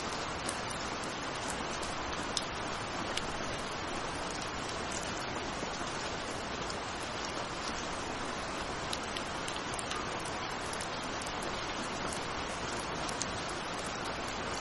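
Steady rain falling: an even, constant hiss with frequent small, sharp drop ticks scattered through it.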